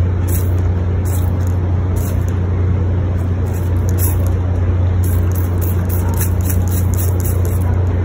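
A steady, loud low rumble with an even hiss over it, unchanging throughout.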